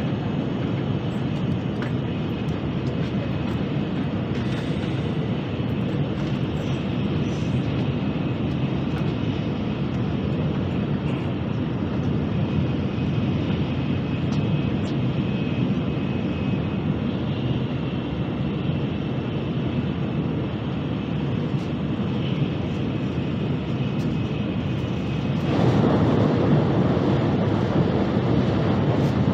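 Steady rushing rumble of a Nozomi Shinkansen bullet train at high speed, heard from inside the passenger cabin. About 25 seconds in it grows louder and fuller as the train runs onto a steel truss bridge.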